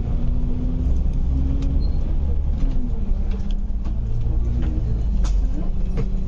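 Double-decker bus under way, heard from inside on the upper deck: a steady low engine rumble whose note rises and falls as the bus pulls away and moves through traffic, with scattered light rattles from the bodywork.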